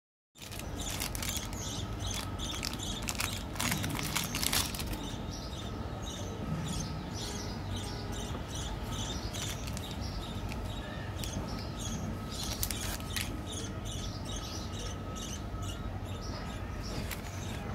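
Hands handling packaged snacks and candies on a tabletop: irregular crinkles and clicks of plastic wrappers, busiest a few seconds in, over a steady low hum.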